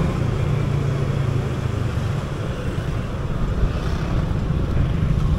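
Motor scooter engine running steadily while riding in city traffic, with wind buffeting the microphone.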